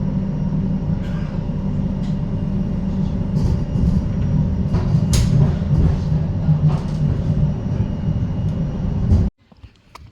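Train running: a steady low rumble with scattered clicks and knocks, cutting off abruptly about nine seconds in.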